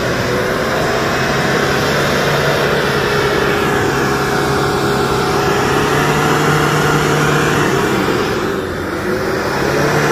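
Hyundai Galloper's engine working hard under load as the bogged 4x4 strains to drive itself out of deep mud. The note swells a little in the middle and dips briefly near the end.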